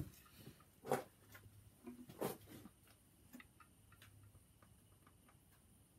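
Hand ratchet working a cylinder-head bolt, a few sharp knocks in the first couple of seconds followed by scattered light clicks, as the head bolts are angle-tightened a further 90 degrees.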